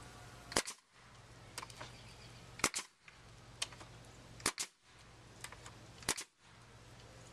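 A nail gun firing four times into a 2x4 board, about one shot every two seconds, each a sharp double crack, with fainter clicks as it is repositioned between shots.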